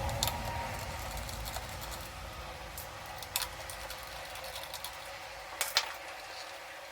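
A few sharp clicks and taps from handling the opened laptop's plastic and metal parts: one just after the start, one near the middle and a quick pair near the end, over a low steady hum.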